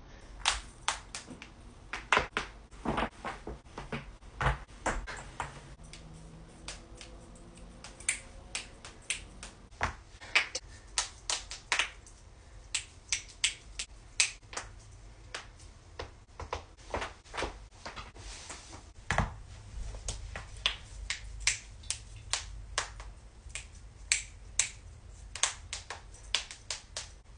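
Human joints cracking: a long run of sharp pops and cracks in quick, irregular succession, some coming in rapid clusters.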